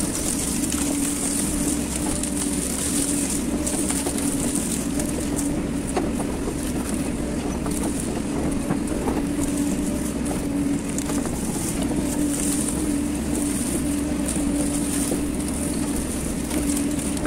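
Hydraulic excavator's diesel engine running steadily under working load, a constant hum heard from the operator's cab, with a few faint clicks as the bucket works through brush.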